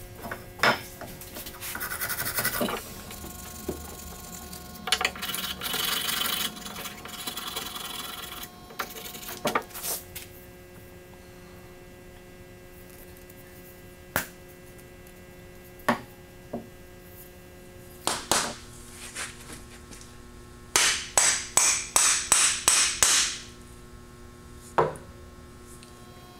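Hand sanding of a restored ball peen hammer with sandpaper on a sanding block: bursts of rubbing strokes, ending in a quick run of about ten back-and-forth strokes. Occasional sharp knocks come from the hammer and block being set down on the wooden bench, over a faint steady hum.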